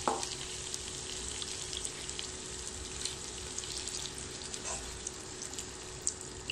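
Sliced bitter gourd and new potatoes sizzling in oil in a non-stick wok while being stirred with a wooden spatula, with faint crackles throughout and a couple of sharp knocks right at the start. A faint steady hum runs underneath.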